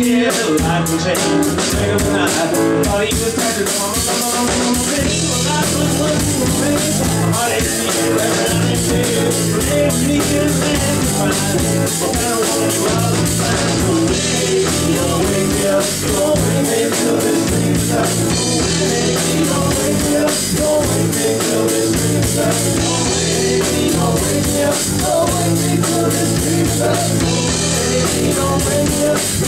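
Live rock band playing: electric guitars, bass guitar and a Sonor drum kit, loud and steady throughout.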